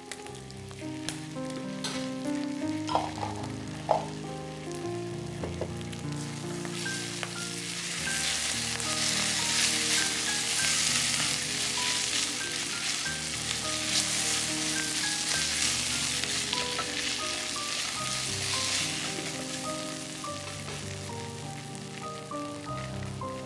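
Food sizzling in a hot frying pan, growing louder about seven seconds in and easing off near the end, with two sharp knocks a few seconds in. Soft background music with a gentle melody plays under it.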